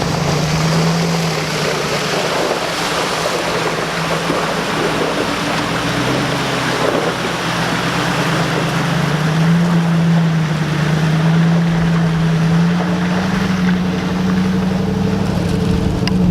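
A motor vehicle's engine running steadily under a loud rushing of road and wind noise. The engine hum creeps slightly higher in pitch in the second half.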